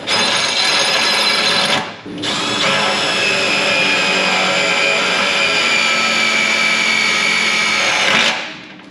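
Cordless drill boring a pilot hole into a truck's steel frame rail for a self-tapping screw: a short run, a brief stop, then a longer run whose whine sags slightly as the bit works into the metal, stopping near the end.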